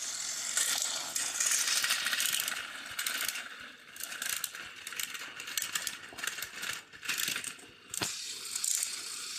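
Battery-powered toy train engines straining against each other on plastic track: a rapid, uneven clicking and rattling of their gears and wheels.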